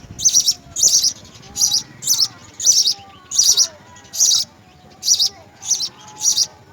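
House sparrow chirping: short, high chirps repeated steadily, about three every two seconds, with fainter lower whistles behind them.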